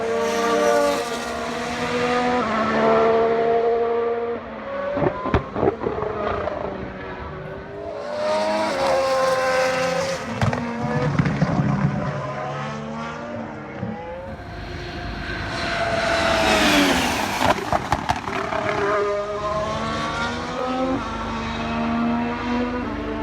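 Formula One cars with 2020 Honda 1.6-litre turbocharged V6 engines running on track, notes climbing and dropping through the gears as they pass, with three bursts of sharp pops and crackles on the overrun.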